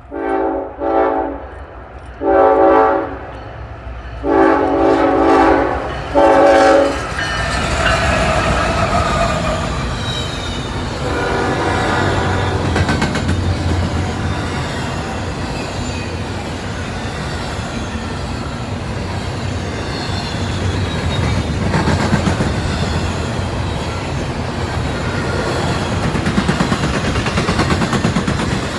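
Air horn of a CSX GE ES44AH diesel locomotive sounding five blasts of mixed length, two short, two longer and a final short one, over about seven seconds. Then the empty intermodal train passes close by, a steady noise of wheels on rail.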